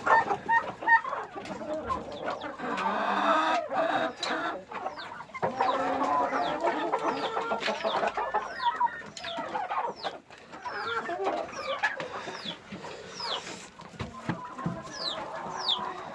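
A flock of chickens clucking and calling. From about six seconds in, many short, high, falling peeps come several times a second.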